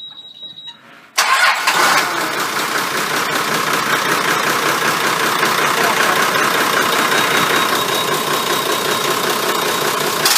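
Inboard marine diesel engine starting about a second in, then running steadily, heard close-up in its engine bay.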